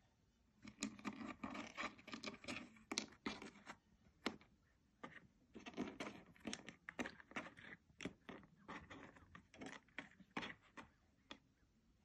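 Cat pawing and nosing dry kibble out of a plastic peg puzzle feeder: irregular quick clicks and scrapes of kibble and paw against the plastic, starting about half a second in, with a brief lull partway through.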